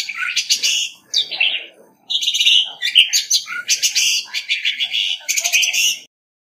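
Male orange-headed thrush singing its territorial challenge song: fast runs of varied, rich whistled and chattering phrases with a short break about two seconds in. The song stops about a second before the end.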